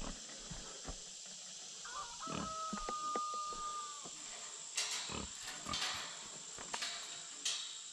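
A rooster crowing once, ending in one long steady note of about two seconds, with clicks and rattles from the metal pen gate and its chain being handled.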